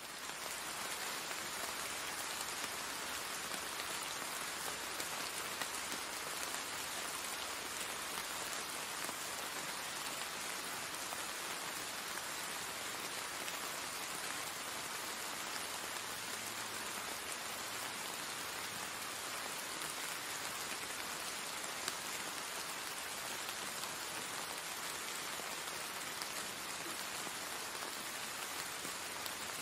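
Steady rain falling on garden plants and wet paving tiles, an even hiss that does not let up.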